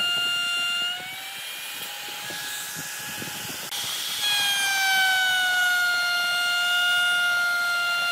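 High-speed electric power tool whining as it works wood. About a second in it eases off, going quieter and slightly higher. Near four seconds in it comes back louder and its pitch slowly sags under load.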